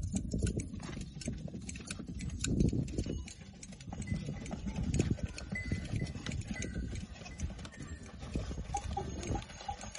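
Goat-hair shearing by hand: irregular snipping and clicking of shears cutting through the long hair, over a low rumble.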